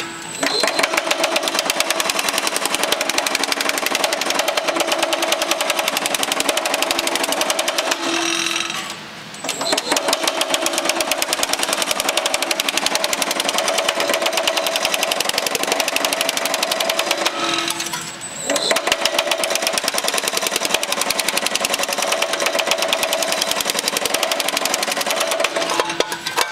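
Baileigh MH-19 power hammer hammering sheet metal in rapid, even strokes, stretching and deepening a panel's shape in passes. It runs in three long stretches with brief pauses about 9 and 18 seconds in.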